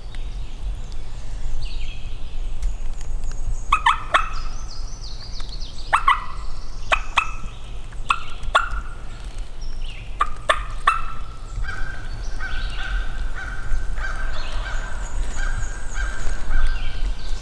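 Wild turkey gobbler calling: a series of gobbles and rattling calls, coming thickest in the middle and again near the end.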